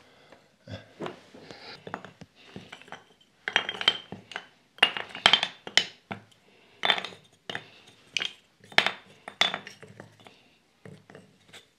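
Irregular clatter of wooden lattice bars and hand tools being handled on a wooden workbench: sharp clacks and knocks in small clusters with quiet gaps between, several with a brief ring.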